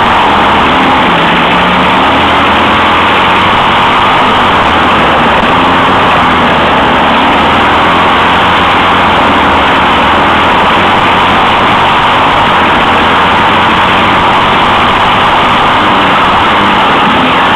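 Off-road racing kart's engine running hard at race speed, recorded onboard. The sound is loud and steady, with the engine pitch wavering slightly.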